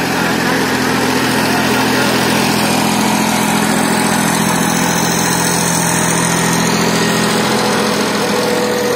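Massey Ferguson 9500 tractor's diesel engine running loud and steady.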